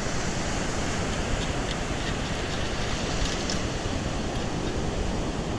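Steady rushing noise of surf and wind buffeting the microphone, with no distinct events.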